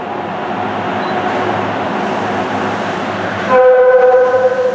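Rubber-tyred Sapporo subway train approaching the station through the tunnel, its running noise building, then sounding its horn about three and a half seconds in: one steady blast lasting about a second.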